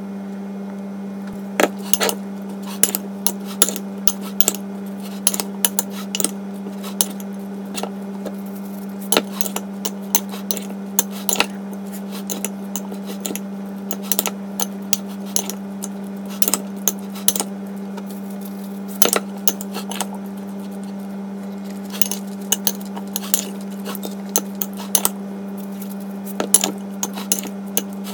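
Metal spoon clinking and scraping against a glass bowl as a chopped salad is stirred, in many irregular sharp clicks, over a steady low hum.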